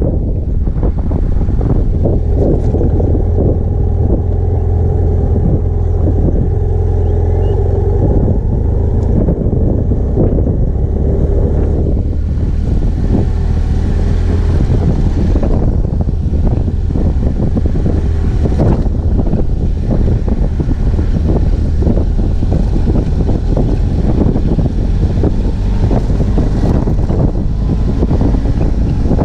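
BMW F800GS Adventure's parallel-twin engine running steadily as the motorcycle rides along a rough dirt road, a low drone, with irregular knocks and rushing noise over it.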